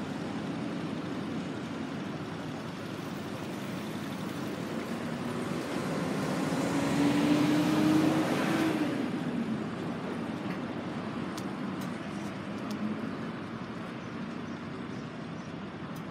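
Yamaha XJR1300C's air-cooled inline-four running steadily through an Akrapovič silencer. Midway a louder swell builds over a few seconds with a slowly rising pitch, peaks about eight seconds in, then drops away.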